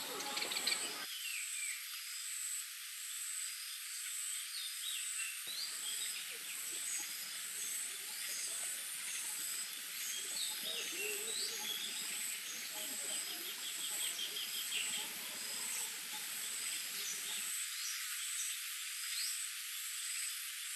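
Forest ambience: a high insect buzz that pulses evenly throughout, with scattered short bird chirps.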